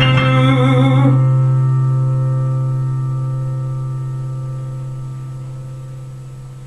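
Music ending on a held low chord: the upper notes drop away about a second in, and a low tone rings on, fading out steadily.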